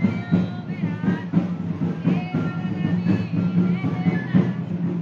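Festive music with a steady drum beat and a high piping melody of short, bending notes.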